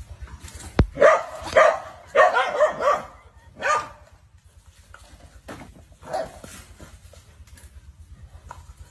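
Dogs barking at a snake: a quick run of loud barks in the first few seconds, then a couple of fainter single barks.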